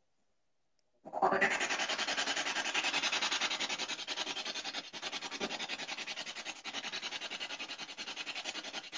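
Choppy static hiss pulsing evenly many times a second, the sound of a spirit box radio sweeping through stations. It starts about a second in, after a short silence.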